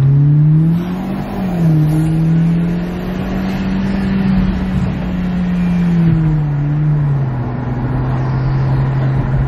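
Hyundai Genesis Coupe 2.0T's turbocharged four-cylinder engine, breathing through a newly fitted K&N cold air intake, pulling under acceleration. The engine note climbs, dips at a gear change about a second and a half in and climbs again, then the revs fall about seven seconds in and settle to a steady lower note.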